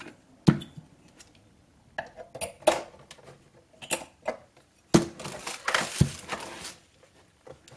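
Plastic casing of a portable cassette boombox handled on a desk: a string of sharp clicks and knocks, with a rustling scrape about five seconds in as it is turned over.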